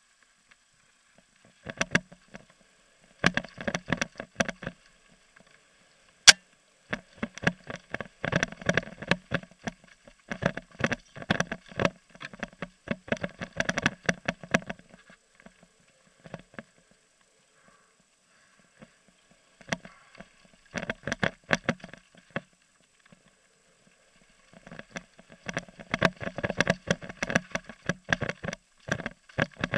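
Downhill mountain bike clattering over a rough dirt trail, picked up by a helmet-mounted camera: bursts of rapid clicks and rattles a few seconds long, broken by short quiet gaps, with one sharp click about six seconds in.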